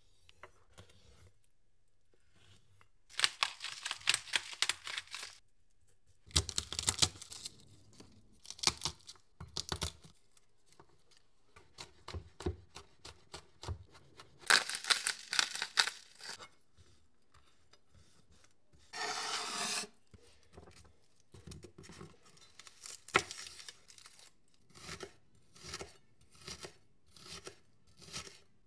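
A knife scraping the scales off a whole striped perch in rasping strokes, then a chef's knife mincing garlic and slicing a shallot on a bamboo cutting board, with short chopping knocks about two a second near the end.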